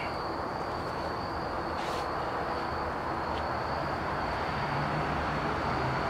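Insects singing one steady high note over a steady low hum and outdoor background noise, with a brief scrape about two seconds in.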